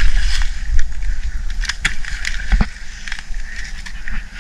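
Long-handled digging tool chopping and scraping into loose soil and leaf litter, a few irregular sharp strikes over a steady low rumble.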